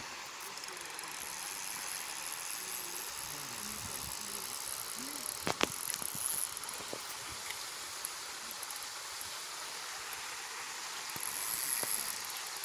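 Spinning reel being wound in while playing a fish on a bent rod: a faint mechanical whirr from the reel near the end, over a steady outdoor hiss, with one sharp click about halfway through.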